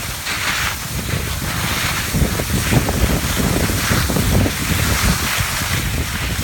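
Wind buffeting a phone microphone while skiing, a steady low rumble, with the hiss of skis sliding over packed snow swelling and fading every second or so.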